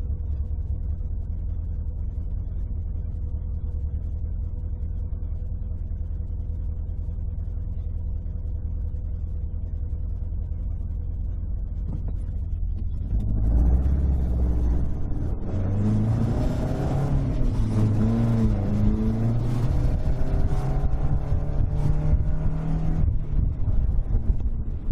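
Toyota AE86's swapped-in five-valve 4A-GE engine, heard from inside the cabin: it idles steadily, then about halfway through pulls away and revs up through the gears, its pitch rising and dropping back at each shift.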